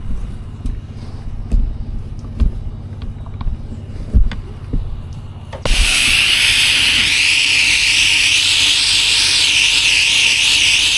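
Low rumble with scattered knocks. About halfway through, a pressure washer's spray starts suddenly as a loud, steady hiss of high-pressure water.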